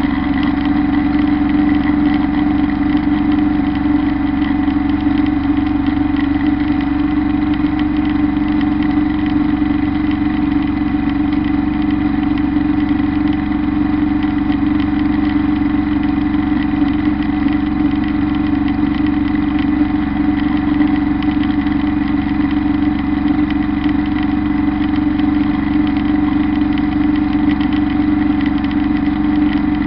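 Kubota Bulltra B1-17 compact tractor's three-cylinder diesel engine running at a steady speed under load, driving a PTO drum mower through tall grass. It is a constant, unchanging drone with a steady hum.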